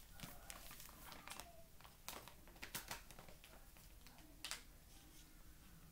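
Faint, scattered small clicks and crunches of someone eating cornstarch straight from the bag, about eight short sharp clicks spread over a few seconds.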